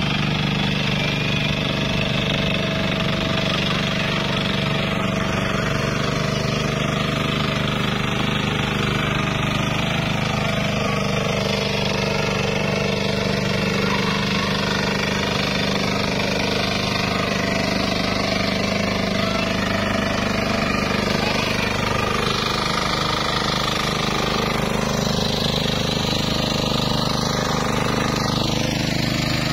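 Engine of a two-wheel hand tractor running steadily, with no change in speed.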